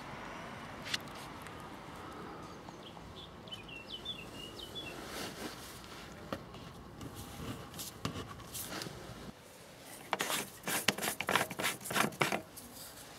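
Gloved hand twisting the plastic cap of a car's coolant expansion tank: a quick run of rubbing scrapes and clicks near the end. Before that, a faint outdoor background with a bird chirping a few times.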